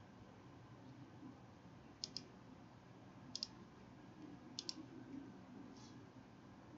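Computer mouse clicking: three quick double-clicks about a second and a quarter apart, then a fainter single click, over a faint low room hum.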